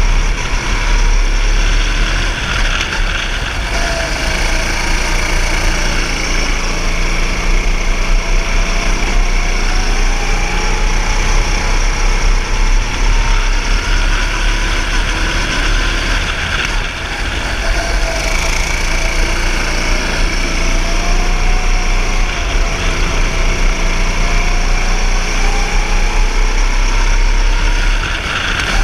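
Go-kart's single-cylinder engine running at full throttle on a lap, its pitch rising on the straights and dipping into the corners, over and over.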